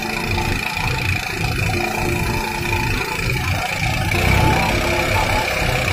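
Motorised rice thresher running steadily, its engine and spinning threshing drum giving a low, pulsing rumble under a constant high whine, as sheaves of rice stalks are fed into it.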